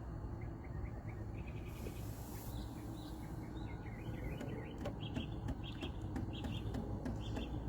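Small birds chirping in short, repeated notes over a steady low background rumble, with a brief hiss about two seconds in.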